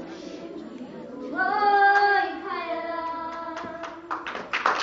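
A child singing a few long, held notes, loudest in the middle. Near the end, hand claps begin and build into applause.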